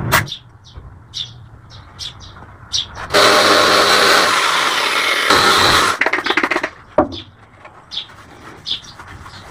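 Rotary polisher with a foam pad running against a cleaver blade for about three seconds in the middle, a steady loud whirring hiss that cuts off. Before and after it, quieter stretches of small clicks and taps from handling.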